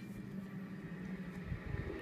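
Quiet room background: a steady low hum under a light hiss, with a few soft bumps near the end.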